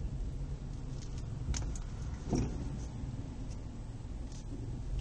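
Subaru Outback's 2.5-litre flat-four engine heard from inside the cabin, throttle closed and revs falling to idle as the car rolls to a stop, with a steady low rumble. A few light clicks sound in the cabin about one and a half to two and a half seconds in.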